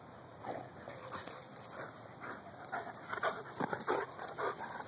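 Dogs at play, making a string of short, quick sounds that come more often in the second half.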